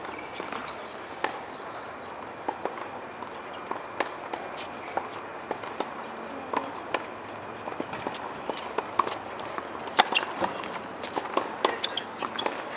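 Tennis balls being struck with rackets and bouncing on a hard court during a rally: irregular sharp pops, the loudest about ten seconds in, with footsteps on the court.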